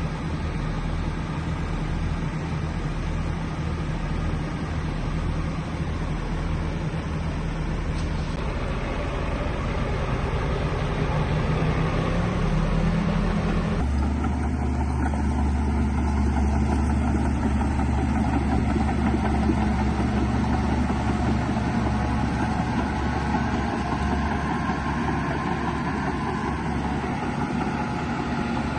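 Diesel engine of heavy earthmoving machinery running steadily. Its pitch climbs slightly about twelve seconds in, then the sound changes abruptly about two seconds later to a deeper, steadier drone.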